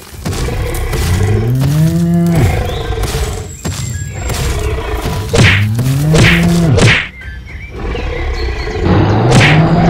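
Cartoon animal-fight sound effects: a low animal call that rises in pitch and then holds, heard three times, with shrill screeches and thuds between.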